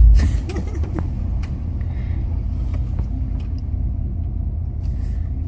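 Truck engine running steadily with a low rumble, with a loud low thump right at the start.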